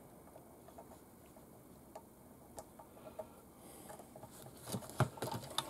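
Small hand-held metal parts clicking and tapping against an RC truck's metal chassis bracket as a spacer and shock absorber are fitted by hand. The taps are sparse and faint at first, then come thicker and louder from about four and a half seconds in, the sharpest about five seconds in.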